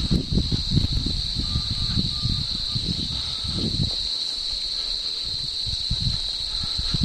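Steady high-pitched insect chorus, crickets in a grassy field, with close rustling and thumps of someone moving on foot for the first four seconds or so, then fainter.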